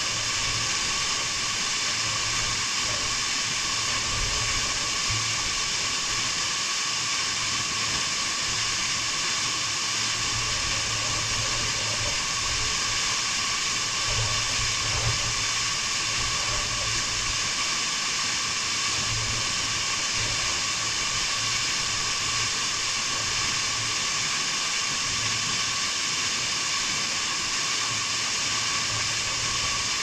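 Waterfall pouring into a rock plunge pool close by: a steady rush of falling water.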